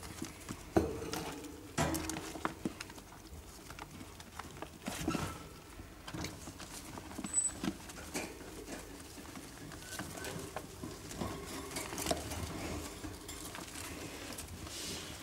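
Young rodents scurrying and scrabbling through wood-shavings bedding and over a fleece hammock in their cage: irregular light rustling and small knocks, busiest in the first few seconds.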